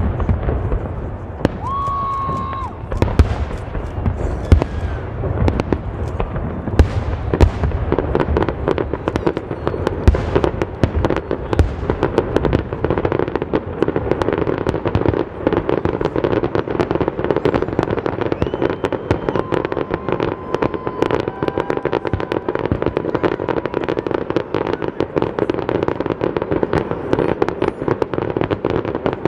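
Fireworks show: aerial shells bursting with loud, separate bangs, giving way after about eight seconds to a dense, continuous crackling barrage.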